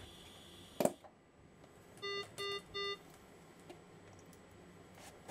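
A sharp knock about a second in, then three short, evenly spaced electronic beeps from hospital medical equipment, a ventilator-type alarm tone.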